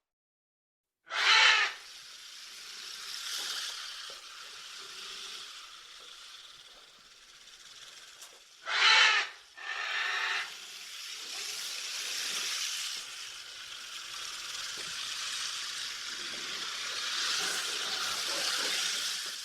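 An animal calls loudly three times, briefly each time: once near the start, then twice close together about halfway through, over a steady hiss of background noise.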